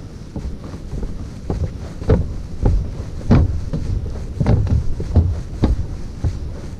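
Wind buffeting the microphone in irregular low rumbling gusts, several sharper ones in the middle.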